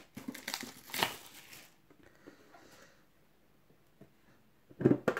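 Cellophane shrink wrap crinkling as it is pulled and crumpled off a metal trading-card tin, for the first second and a half or so, then faint handling. A brief thump near the end.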